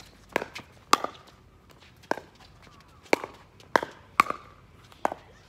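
Pickleball rally: sharp, hollow pops of the plastic ball struck by paddles and bouncing on the court, about seven in all at uneven spacing of half a second to a second.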